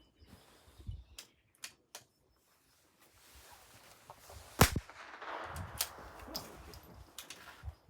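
A .22LR rimfire rifle shot, a single sharp crack about two-thirds of the way through. A few fainter sharp clicks come before and after it.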